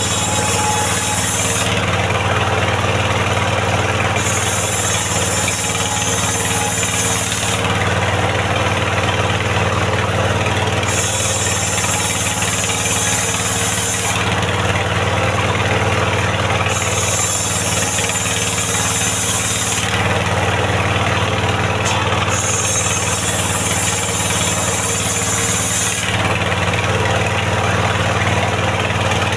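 Engine-driven mobile circular sawmill running while sawing a mahogany log into rafters: a steady engine drone under the saw, with a high hiss that comes and goes about every three seconds.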